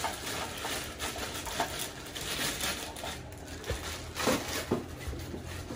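Thin plastic wrapping rustling and crinkling as it is pulled off a sewing machine's foot control and cord, with a few light handling knocks.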